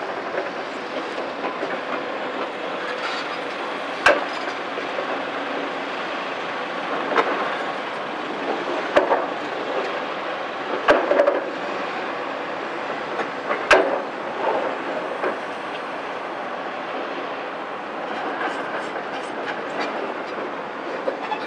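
A CAT 374F excavator's C15 diesel engine and hydraulics running steadily while its demolition grab handles concrete rubble, with sharp crashes and knocks of broken concrete every few seconds, the loudest about 14 seconds in.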